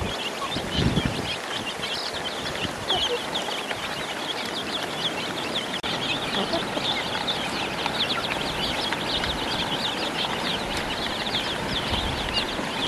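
A crowd of baby chicks and ducklings peeping continuously, many short, high cheeps overlapping, with a couple of low thumps about a second in.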